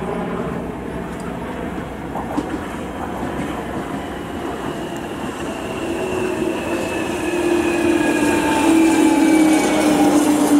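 London Underground 1996 Tube Stock train running into the platform over rumbling wheels and rails. Its traction motors whine with a pitch that falls steadily as it slows, growing louder as it nears.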